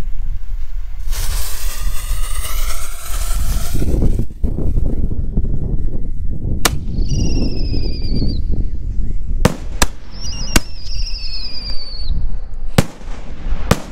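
Whistling serpent salute shells firing: a hissing whistle that climbs in pitch for about three seconds, then two warbling high whistles in the air, with six sharp, loud salute bangs between and after them.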